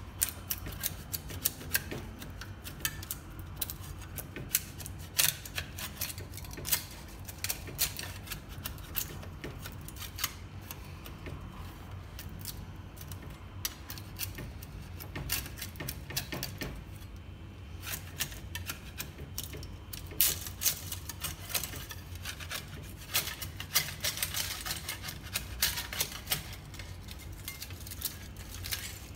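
Metal spatula scraping and prying plastic 3D prints off a printer's glass build plate: a continual run of sharp clicks and snaps as the parts pop free and knock against the plate, busiest about two-thirds of the way through. A steady low hum lies underneath.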